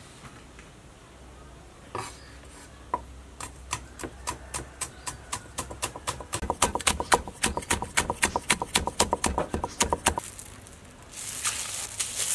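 Cleaver chopping on a round wooden chopping block, mincing red chillies: a few separate knocks, then a fast, even run of strikes, about five a second, for several seconds. A rustling hiss follows near the end.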